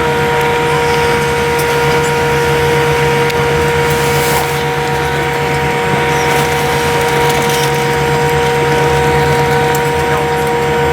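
Cabin noise inside a British Airways Boeing 787-8 taxiing after landing: its Rolls-Royce Trent 1000 engines run at idle, giving a steady whine of several held tones over a low hum and rushing air.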